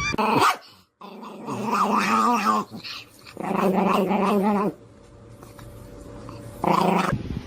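A dog growling in drawn-out, wavering stretches, three times.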